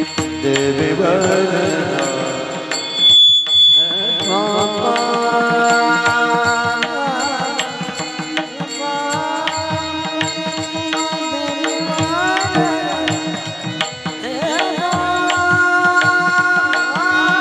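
Marathi devotional abhang sung by a male voice with tabla accompaniment, the held notes gliding between pitches. A brief high steady tone sounds about three seconds in.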